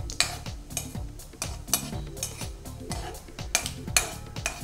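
A metal spoon stirring and scraping in a pan of cumin seeds frying in oil. It makes irregular clinks and scrapes against the pan, several a second.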